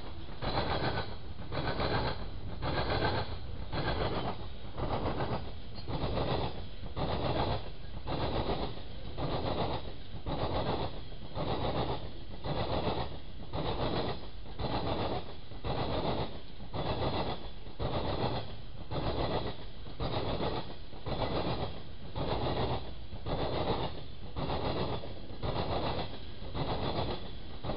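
Freight train cars rolling past, their wheels clacking over rail joints in a steady rhythm of a little more than one clack a second over a continuous low rumble.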